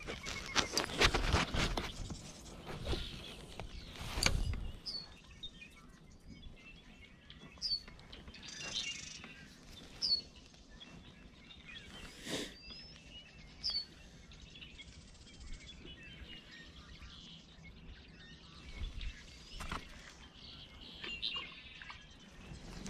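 A bird calling over and over with short, high chirps every second or two. A few sharp knocks and clicks in the first few seconds, and another near the middle.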